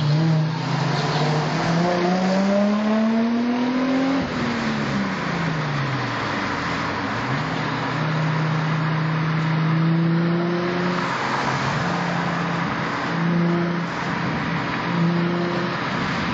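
Car engine and exhaust in city driving, heard from inside a car's cabin. The revs climb steadily for about four seconds, drop away over the next two, then hold steady, with a few short blips near the end, over steady road noise.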